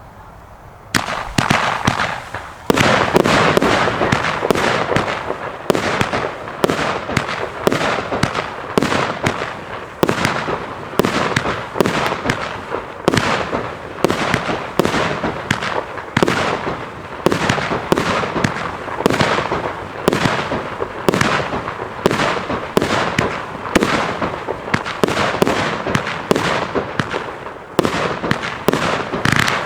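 Evolution Fireworks "Red Fury in Blue" firework cake firing shot after shot, about two a second, each shot sharp with a hiss of bursting effects between them. It starts softly about a second in and runs at full strength from a few seconds in.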